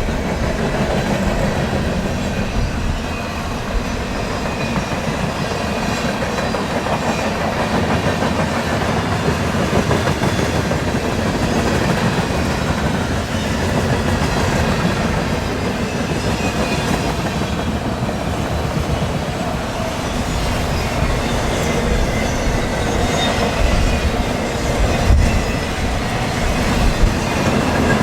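A freight train rolling past steadily, its wheels clacking over rail joints, with wind buffeting the microphone.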